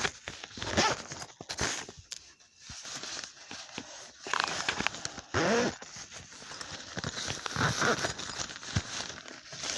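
Packaging and small plastic items being handled: irregular clicks, rustling and crinkling, with a brief murmured voice about halfway through.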